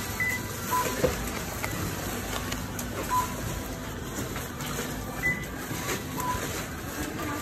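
Supermarket checkout register beeping as a cashier scans groceries: about five short beeps, some higher and some lower in pitch, spaced a second or two apart over steady store background noise.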